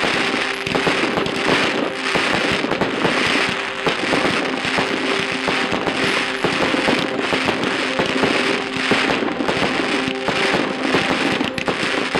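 Fireworks bursting and crackling without a break in dense, rapid reports, with music playing underneath.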